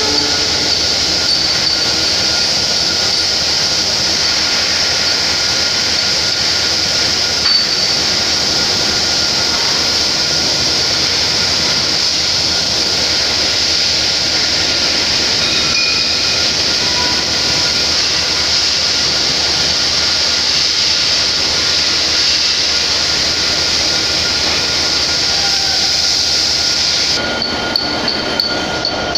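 Loud, steady high-pitched hiss of industrial workshop noise with a faint steady whine underneath. Near the end the hiss cuts off abruptly and a few light clicks follow.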